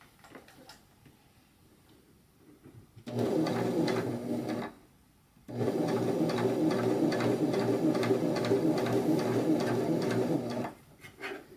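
Husqvarna Viking Emerald 118 sewing machine stitching. After a few faint clicks it runs in a short burst of about a second and a half, stops briefly, then runs steadily for about five seconds. It is not loud.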